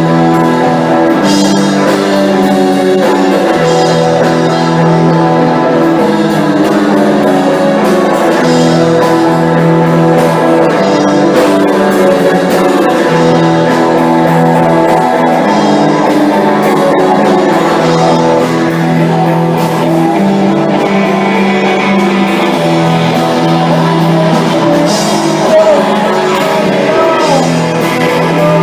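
Small rock band playing: guitar, keyboard and drums, the chords changing every second or two.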